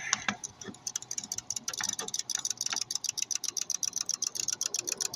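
Rapid, even mechanical ticking, about ten ticks a second, settling into a steady rhythm about a second in.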